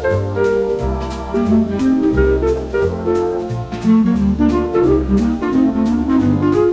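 Instrumental jazz-style music with horns over a walking bass line and steady drum hits.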